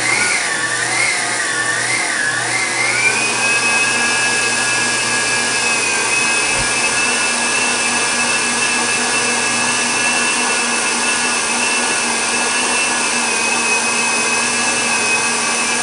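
Electric stand mixer running at its highest speed, beating eggs in its stainless steel bowl. Its motor whine wavers in pitch for the first few seconds, then settles into a steady high whine over a constant whirring hum.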